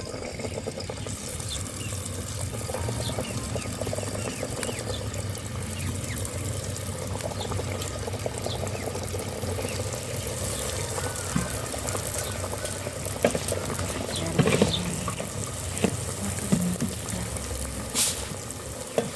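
Donut dough deep-frying in hot oil: a steady sizzling and bubbling, with a few sharp clinks of a utensil against the pan in the second half.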